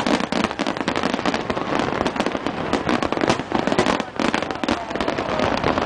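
Aerial fireworks shells bursting in rapid succession: a dense, continuous run of cracks and pops with no break.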